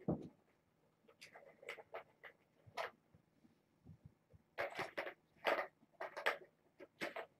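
Kittens playing with toys: short bursts of rustling and light clicking, with a thump at the start and several quick clusters in the second half.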